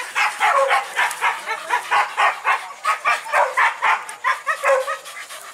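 Hunting dog yelping in a rapid run of short, high yelps, about four to five a second, stopping shortly before the end.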